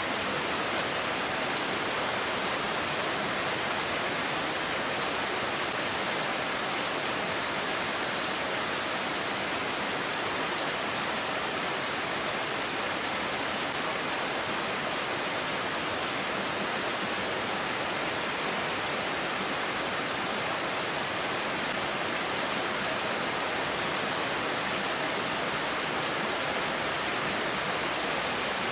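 Rain falling steadily, an even hiss with no breaks or single drops standing out.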